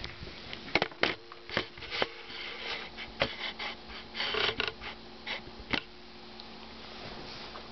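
Handling noise and movement: irregular clicks and knocks, with a brief rustle about four seconds in, as the camera is set in place. The sounds thin out over the last couple of seconds, and a faint steady low hum runs underneath.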